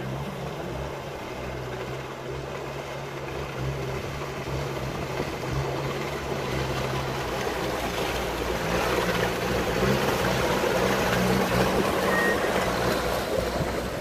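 Sherp amphibious ATV's engine running steadily as it fords a river, then revving up from about eight seconds in with a louder rushing noise, before easing off near the end.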